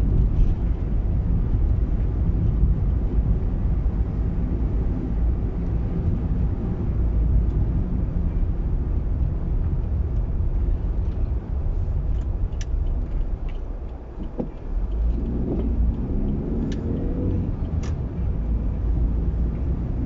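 A car being driven along a road, heard from inside: a steady low rumble of engine and road noise that eases briefly about fourteen seconds in, then the engine note climbs a little as it picks up again.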